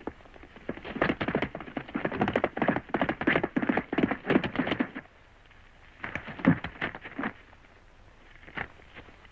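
Hoofbeats of a galloping horse: a rapid clatter for about four seconds, then a short burst of hoof thuds after a brief pause.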